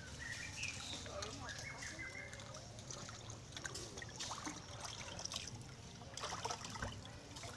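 Water splashing and trickling in a tank as monkeys paddle and drink in it, with a few short high chirps early on.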